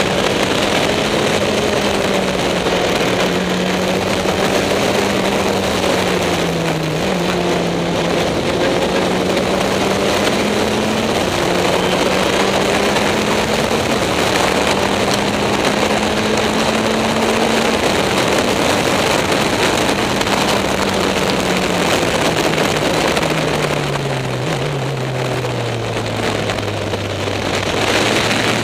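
Caterham SP/300.R race car's engine at speed, heard from the open cockpit, revs rising and falling with gear changes and corners. The revs fall steadily for several seconds late on, then climb again near the end.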